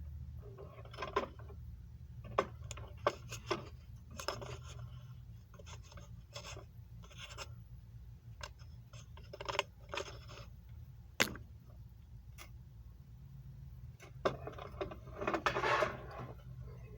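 Scattered sharp clicks and knocks with short patches of rubbing and scraping, over a steady low hum. The densest rubbing comes near the end.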